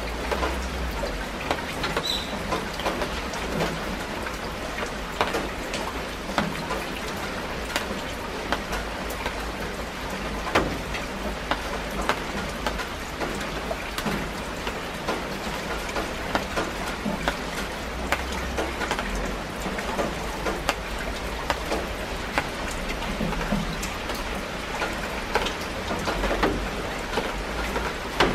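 Steady rain falling on broad plant leaves: a constant hiss scattered with many sharp drop taps.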